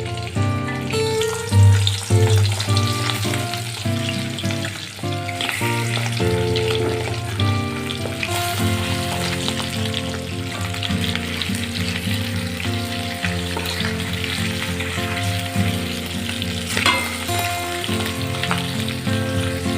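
Food frying in hot oil in a pan, with a steady sizzle throughout, under background instrumental music.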